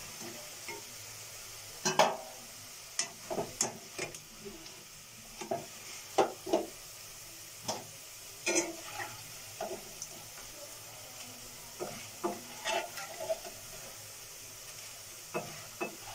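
Crisp potato chips frying in hot oil in a wok, a steady sizzle, with frequent short knocks and scrapes as a metal spatula and a steel mesh strainer stir and lift the chips against the pan. The loudest knock comes about two seconds in.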